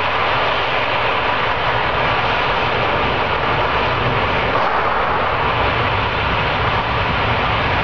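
Uncontrolled oil well blowout: gas and well fluid jetting out of the well with a loud, steady rushing noise, the sign of a total loss of well control.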